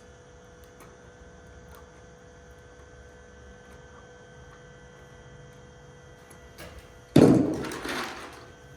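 Steady electrical hum, then about seven seconds in a sudden loud knock followed by about a second of scraping and rustling as the neutral wires are worked into a twist-on wire connector.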